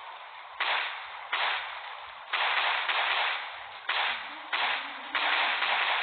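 Pistol shots fired one after another, about six in all, each a sudden bang followed by a noisy tail that fades slowly.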